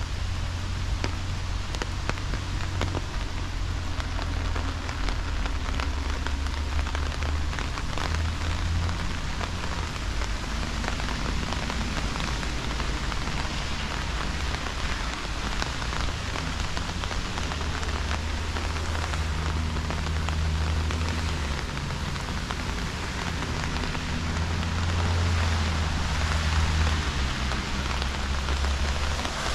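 Steady rain falling, a dense hiss of many small drop ticks, over a low rumble.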